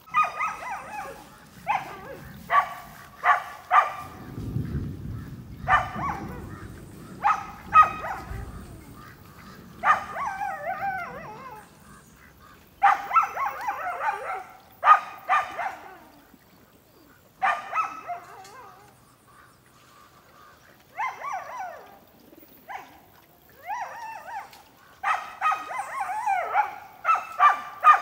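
A dog barking repeatedly, in runs of sharp barks broken by short pauses.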